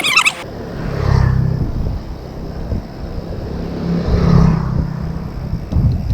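Motor vehicles passing on the road: a low engine sound swells about a second in and again about four seconds in.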